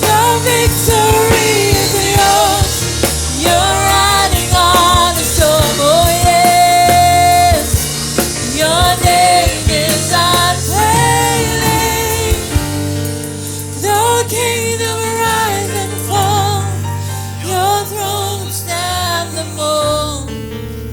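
Gospel worship song: a solo voice singing a melody with vibrato over a backing band with steady bass notes. The music gets quieter near the end.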